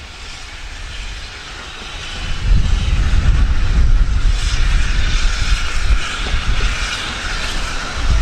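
Steam-hauled train passing close by: a rumble and hiss that swell and turn loud about two and a half seconds in, then stay loud.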